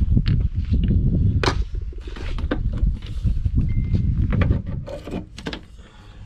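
Clicks and knocks of plastic windshield cowl trim being handled and pulled, over a low rumble on the microphone. The sharpest knocks come about one and a half, two and a half and five seconds in.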